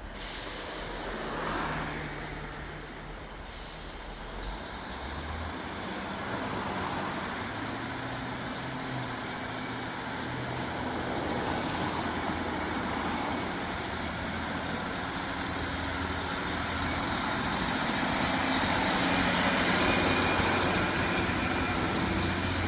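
Diesel railcar engine running, its low note stepping up and down and growing louder toward the end, with a brief hiss at the start.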